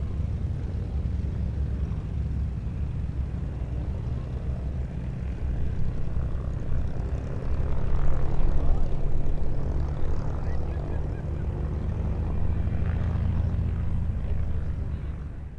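Bell AH-1 Cobra helicopter's rotor and engine running with a fast, even beat, growing louder to a peak about eight seconds in and then easing a little.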